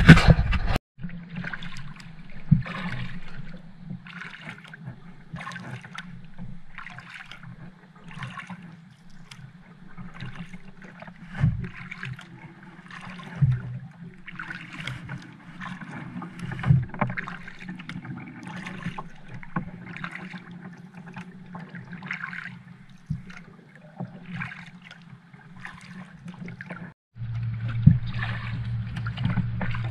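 Kayak paddle strokes swishing through the water about once every second and a half, over a steady low hum. A few sharp knocks come in the middle, and the hum grows louder near the end.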